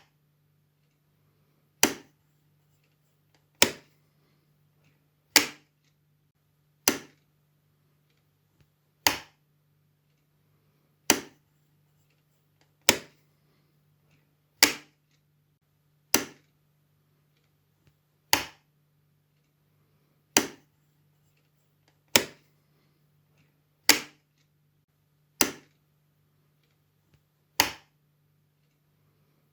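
Wall light switch being flicked on and off: sharp single clicks, about one every one and a half to two seconds, fifteen in all.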